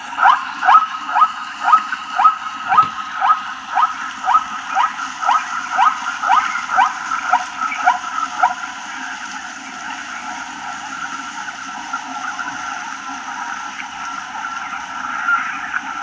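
Zebra barking: a run of about seventeen short, rising yelps, about two a second, that stops about eight and a half seconds in. A steady background of herd noise carries on after.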